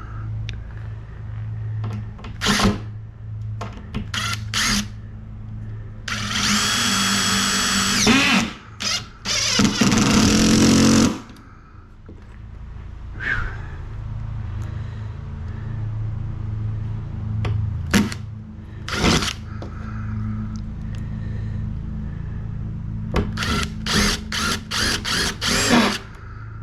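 Power drill running in two bursts, about six and nine seconds in, the second slowing under load, with scattered knocks and clicks from handling the pieces and screws. A steady low hum runs underneath.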